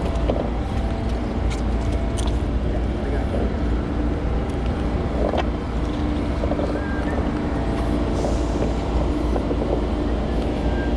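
A boat's engine running steadily at a constant drone, with a few faint clicks over it.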